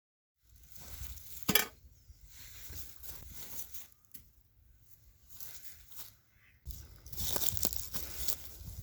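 A metal bee smoker and dry pine needles being handled: one sharp metallic clink about a second and a half in, then intermittent crinkling and rustling that grows denser and steadier near the end.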